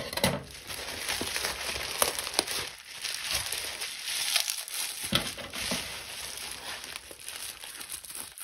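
Bubble wrap crinkling and rustling as a parcel wrapped in it is handled and turned over, with scattered sharp crackles.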